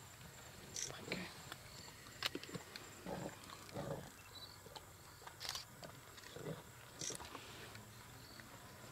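A lioness feeding on a buffalo carcass, chewing and tearing at the flesh. There are sharp cracks scattered through, and a few short low sounds come about three and four seconds in and again near six and a half.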